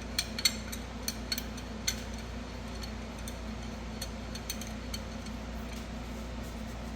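Light metallic clicks and clinks of a large C-clamp being handled and set against a brake caliper, several in quick succession in the first two seconds, then sparser ticks. A steady low hum runs underneath.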